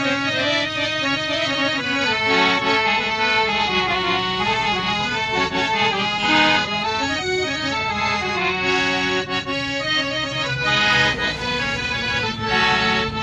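Harmonium played as a melody of held, reedy notes.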